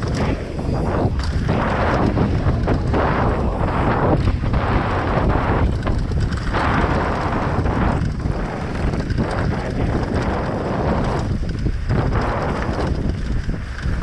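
Heavy wind buffeting on the microphone during a fast mountain-bike descent: loud, gusting noise over a constant low rumble.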